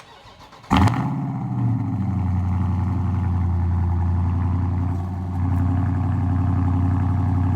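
Dodge Scat Pack's 392 HEMI V8 firing up under a second in, with a short flare, then settling into a steady, deep idle.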